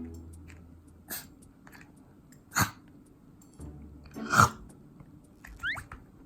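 Chihuahua puppy making short breathy huffs or snorts, four in a few seconds, the loudest about four seconds in, with a brief high rising squeak with the last one.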